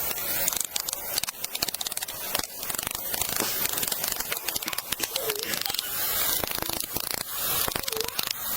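Dense, irregular crackling and rustling: many small clicks over a steady hiss.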